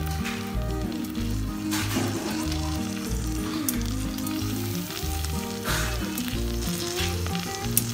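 Melted butter foaming and sizzling in a hot pan as garlic paste is dropped in. The sizzle flares up twice. Background music with a steady bass beat runs underneath.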